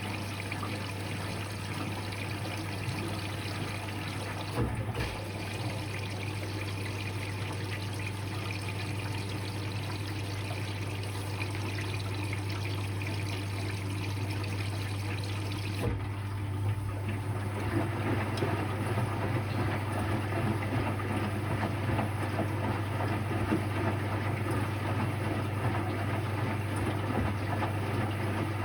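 Electrolux Quickwash commercial washing machine running a rinse, with water splashing and trickling over a steady low hum. A single knock comes about five seconds in. About halfway through, the machine's sound turns rougher and louder.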